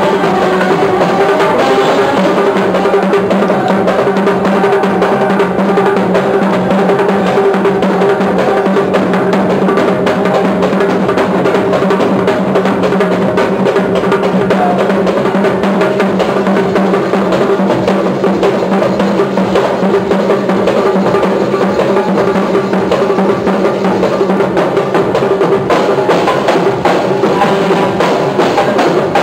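Live band music driven by heavy drumming: a large drum beaten with sticks and many hand-struck frame drums, over steady held melodic notes from the band. The drumming is dense and unbroken throughout.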